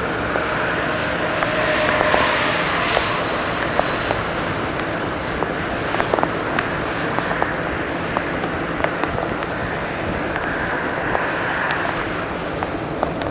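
Steady rushing noise of a vehicle and wind during a severe thunderstorm, with scattered sharp ticks and taps throughout.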